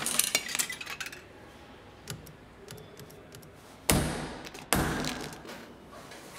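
Snack vending machine in use: a run of quick clicks and rattles at the start, then near the middle a short loud clunk as the spiral turns, followed by a sudden thud as the chocolate bar drops into the tray.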